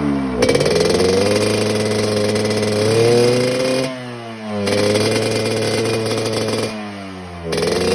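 Yamaha RX-King two-stroke single-cylinder engine breathing through an under-slung racing expansion-chamber exhaust, revved and held high with a growling note. The throttle is let off twice, about four and seven seconds in, and the revs drop briefly before climbing again.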